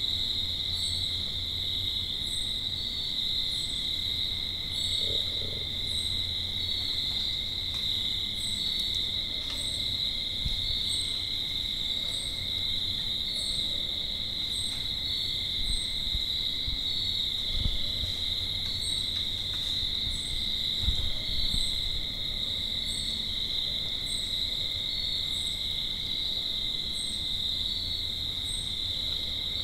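A low, steady humming rumble of unknown origin, recorded and amplified, which the recordist hears as a strange pulsing energy. It lies under a constant high-pitched chorus of calling animals, with a faint chirp repeating about once a second and a few soft low thumps.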